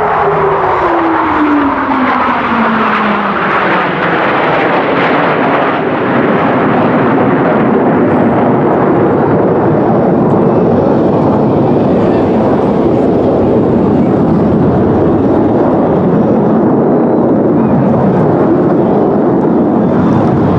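Jet aircraft flying past loudly: a tone drops steadily in pitch over the first few seconds as it goes by. The roar then carries on steadily.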